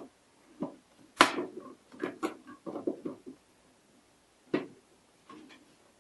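A flat screwdriver prying and sliding under the plastic top cover of a Keurig K90 coffee maker to release its snap latches: scattered plastic clicks and scrapes, with one sharp snap about a second in and another click past the middle.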